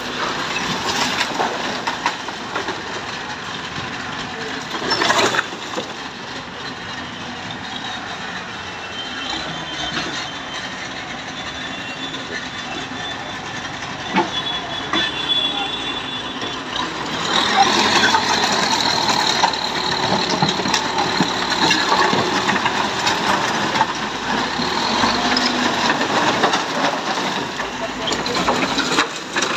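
Backhoe loader's diesel engine running while its bucket pushes and breaks demolition debris of timber and metal sheets, with clattering and scraping of the wreckage. A sharp crash comes about five seconds in, another knock near the middle, and the noise grows louder about two thirds of the way through.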